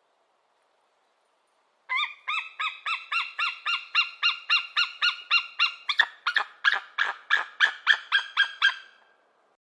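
Eagle calling: a long series of short, high chirping notes, about three to four a second, that turn sharper and louder about six seconds in.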